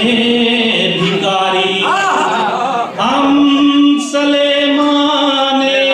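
A man singing a devotional Urdu kalam in a melodic chanting voice, holding one long steady note from about three seconds in.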